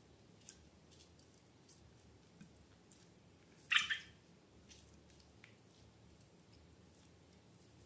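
Slime being handled: faint sticky clicks and pops, with one louder squelch just before the middle.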